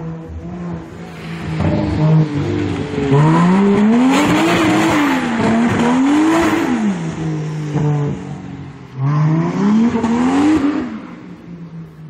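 Toyota Supra Mk3's swapped 1JZ twin-turbo straight-six being worked hard while the car drifts on wet pavement: the revs climb and drop twice about three to seven seconds in, hold steady briefly, then climb and fall once more near the end.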